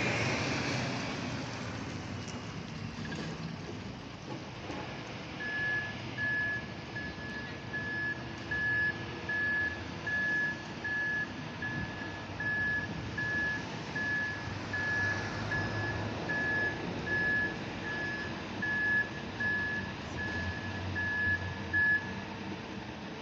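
Backup alarm beeping at a steady high pitch, about one beep every three-quarters of a second, over the low running of heavy machinery, most likely the Junttan PMX22 pile driving rig's travel alarm as it moves. The beeping starts about five seconds in and stops near the end.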